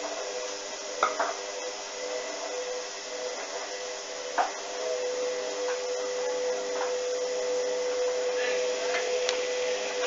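Hoover front-loading washing machine tumbling a load of clothes in the wash: a steady motor hum that grows a little louder about halfway through, with a few short sharp knocks as the load turns in the drum.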